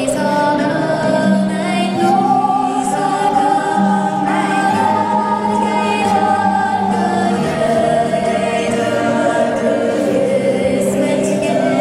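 Handsaw played as a musical saw with a bow: a single voice-like, wavering tone that slides slowly up and down as the blade is bent.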